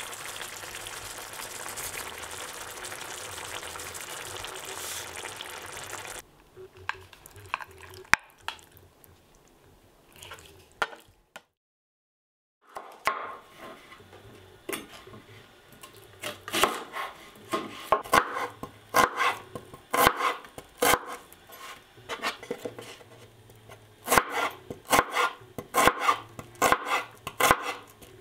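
Kitchen cooking sounds: a steady sizzle of food frying for about the first six seconds, then a few scattered clicks, a moment of dead silence, and a knife chopping on a cutting board in quick, irregular runs of strokes.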